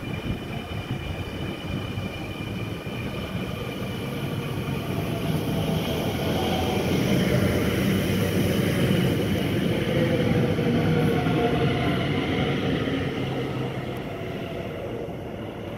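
Dutch NS Sprinter electric multiple-unit train passing close by: a rumble of wheels on the rails with a steady whine over it. It builds to its loudest about halfway through as the train goes by, then fades.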